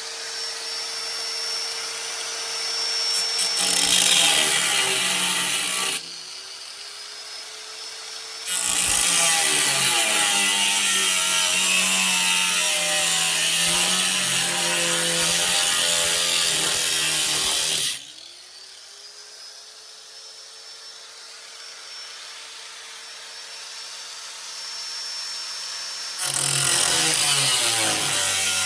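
A power tool cutting metal. Its motor whines steadily when running free, then drops into three loud stretches of cutting, the longest lasting about ten seconds. Each time it comes off the cut, the whine climbs back up in pitch.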